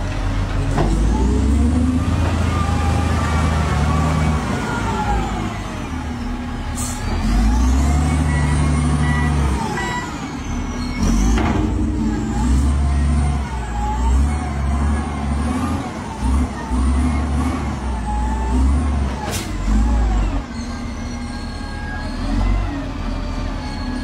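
Heavy diesel engines of a loaded dump truck and a Shantui wheel loader working hard together under load as the loader pushes the truck uphill. The engine note swells and drops over and over, with a few sharp knocks in between.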